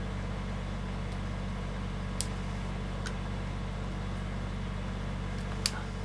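Three short, sharp clicks from a pick working the pins of a Wilka five-pin euro cylinder held in a false set, the last and loudest near the end. A steady low hum runs underneath.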